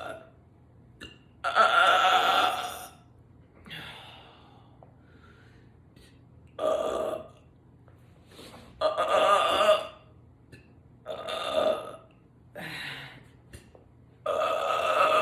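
A woman belching over and over: six long, pitched burps a second or two apart, with a fainter short one about four seconds in.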